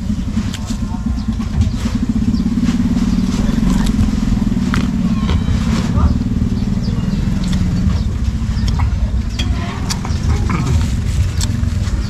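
Motorcycle engine running steadily as a low, even hum that thins out after about eight seconds, with scattered small clicks over it.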